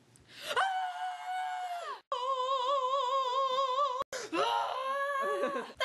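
Three women's voices in turn, each holding one long high vocal note, cut off abruptly by edits: a steady note that drops at its end, then a loud note with a strong wobbling vibrato, then one that slides up and wavers.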